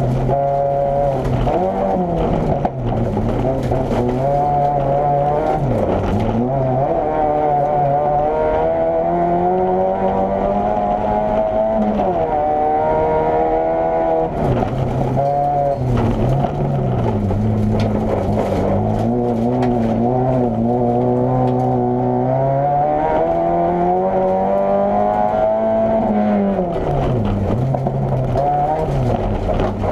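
Opel Corsa A GSi's four-cylinder engine at full load, heard from inside the stripped race cabin. It revs up again and again, with the note stepping down at gear changes and dropping away sharply when the driver lifts off, three times.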